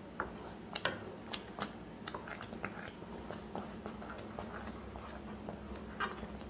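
Wooden spatula stirring thick, wet semolina that has soaked up its water in a pan: irregular soft squelches, scrapes and light taps, over a faint steady hum.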